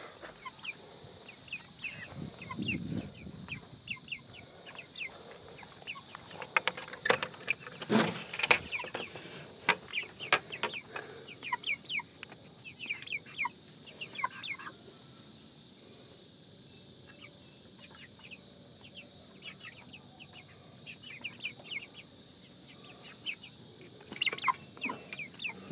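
Cornish Cross broiler chickens clucking and peeping in short calls, with a few sharp knocks about a third of the way in.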